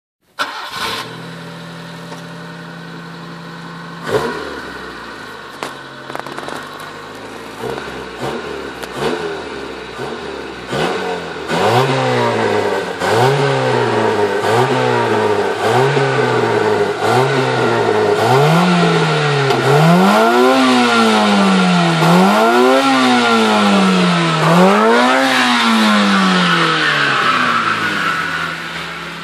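Honda Civic EG3's stock 1.3-litre D13 four-cylinder engine idling, then revved in quick short blips about once a second. It then takes a few longer, higher revs and settles back to idle near the end.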